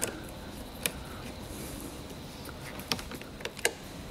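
A handful of short, sharp clicks and taps from plastic car-door trim pieces being handled and fitted by hand, over a steady low hiss of room tone.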